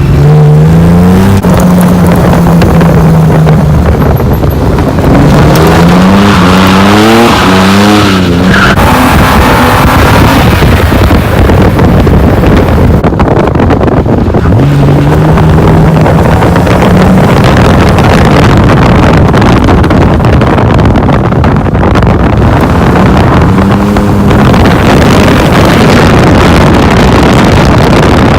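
BMW E36 engine revving hard, its pitch climbing and dropping several times as it is driven, over a loud rushing noise.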